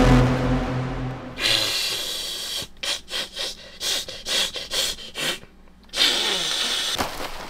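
A low, falling tone dies away in the first second or so, then rasping, scraping noises follow in quick strokes, about three a second: a mouse gnawing.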